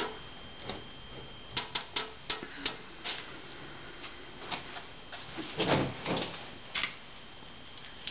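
Irregular light clicks and knocks, some in quick clusters, with a louder, longer knock or rattle about two-thirds of the way through.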